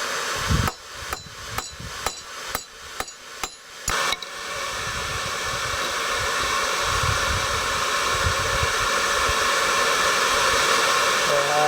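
Hammer blows on hot steel at the anvil, about nine strikes at roughly two a second, then a steady rushing from the forge that comes in about four seconds in and slowly grows louder.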